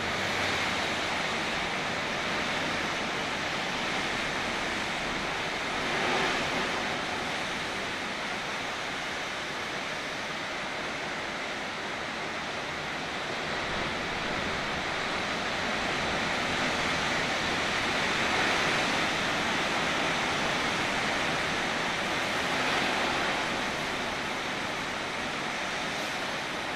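Rough Atlantic surf breaking: a continuous rushing wash of water that swells louder several times as waves crash.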